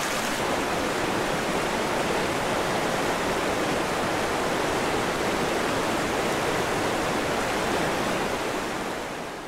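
River rapids: fast whitewater rushing over rocks in a steady, dense wash that fades out near the end.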